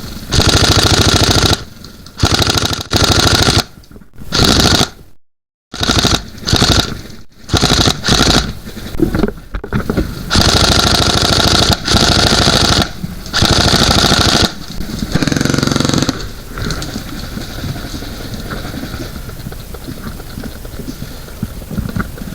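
Airsoft guns firing in repeated fully automatic bursts, each a fast rattle of shots lasting about one to two seconds, a dozen or so in quick succession; after that the firing stops and only a quieter steady noise remains.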